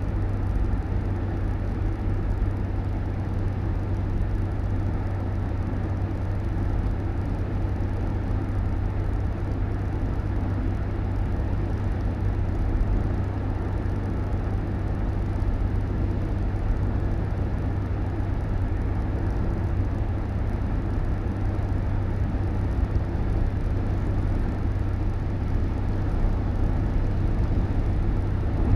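Steady low rumble of a moving road vehicle, its engine and tyre noise holding even throughout.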